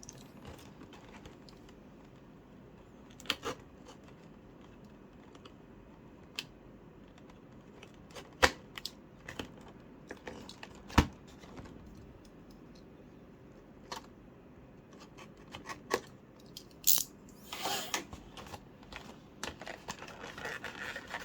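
Cardboard packaging being opened and handled: scattered sharp clicks and taps, the loudest about eleven seconds in, with short rustling scrapes near the end.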